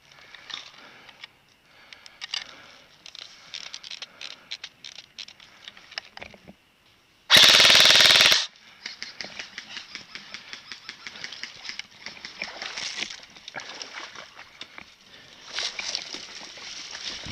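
Airsoft guns firing in scattered single shots and short rapid strings of sharp clicks, with one much louder burst lasting about a second a little past the middle.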